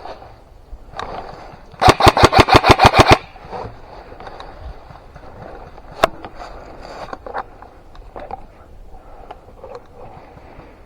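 Airsoft gun firing a rapid burst of about ten evenly spaced shots lasting just over a second, about two seconds in. A single sharp click comes a few seconds later, with faint rustling and small clicks around it.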